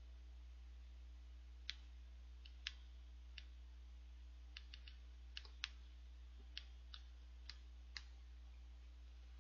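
Near silence over a steady low hum, broken by about fifteen faint, sharp clicks at irregular intervals.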